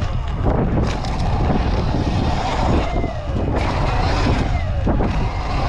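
Sur-Ron electric dirt bike ridden over a dirt track: a thin electric motor whine that glides up and down with the throttle, under heavy wind buffeting on the bike-mounted microphone, with a few sharp knocks from the tyres and suspension over the bumps.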